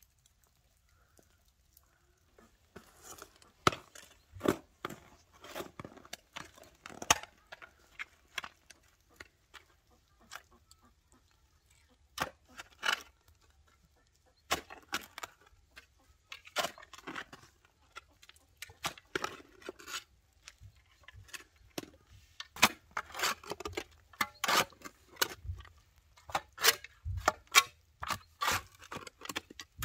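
Metal shovel digging into garden soil: the blade cutting, crunching and scraping through the earth in short, irregular strokes, starting about three seconds in.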